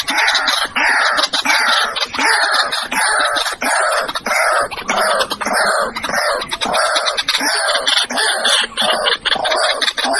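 White-breasted waterhen calling: a loud note, each one falling in pitch, repeated about twice a second without a break.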